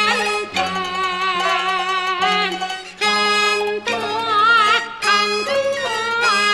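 Peking opera music: bowed fiddles, led by the jinghu, play a melody in phrases with a strong, wavering vibrato, with a short break between phrases about three seconds in.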